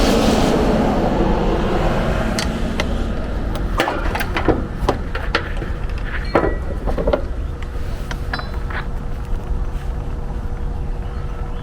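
Rushing noise that fades over the first couple of seconds, then a series of sharp metallic clinks and taps. A faint steady hum comes in about eight seconds in.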